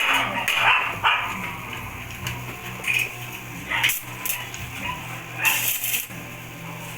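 A dog barking several times in short bursts, over a steady low hum.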